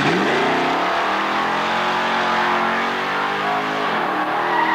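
Drag-race launch: a 1972 Chevy Camaro with an automatic transmission and a 1986 Ford F-150 pickup leave the starting line at full throttle, the engine note climbing sharply at the start and then rising steadily. A little before the end the pitch drops and climbs again as the automatic shifts up a gear.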